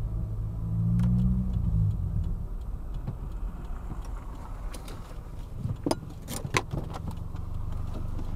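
A car's engine and road noise heard from inside the cabin as it drives, with the engine hum strongest in the first two seconds. A few sharp clicks or knocks come between about five and seven seconds in.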